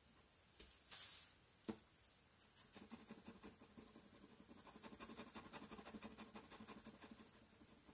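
Pen drawing on paper: a few light clicks and a brush against the sheet, then several seconds of fast, faint scratching as quick repeated ink strokes are laid down.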